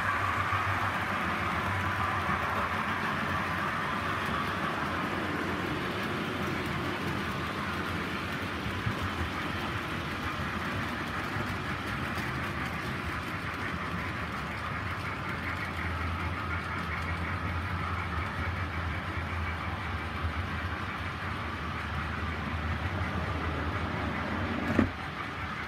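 OO-gauge model trains running around the layout: a continuous rolling rumble of wheels on the track with a low motor hum, easing off slightly as the trains draw away. A single sharp knock comes just before the end.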